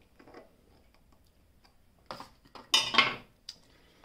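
Light clicks of a screwdriver and a 220 V plug being handled on a bench. A short rattle comes about two seconds in, and a louder clatter a little under three seconds in.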